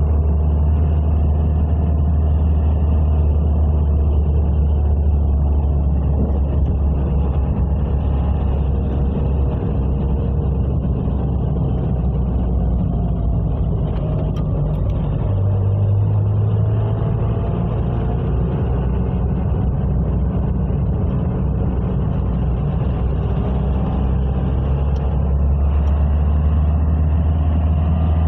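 A car driving: a steady low rumble of engine and road noise, with faint tones that drift slowly up and down as the speed changes.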